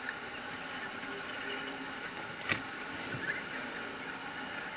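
Steady quiet outdoor background noise with one sharp click about halfway through.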